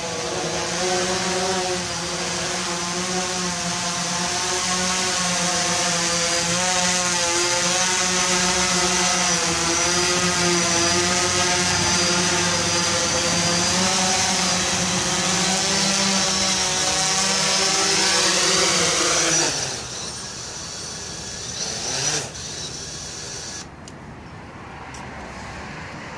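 Yuneec Typhoon H hexacopter's six electric motors and propellers buzzing steadily in flight, with whining tones that waver slightly. About nineteen seconds in, the motors wind down and stop after touchdown, and a brief knock follows a couple of seconds later.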